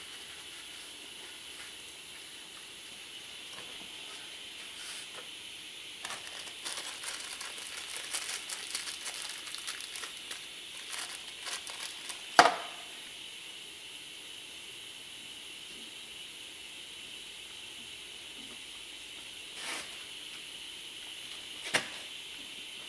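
Crinkling of a paper parts wrapper being handled for several seconds, ending in one sharp click about halfway through. A couple of lighter clicks follow near the end as small parts are fitted at the bench.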